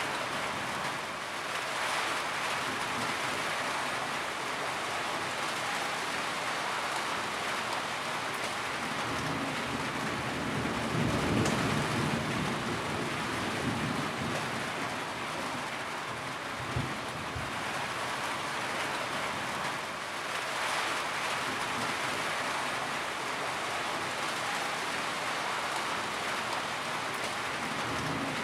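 Steady heavy rain falling, with a low rumble of thunder swelling and fading about a third of the way in.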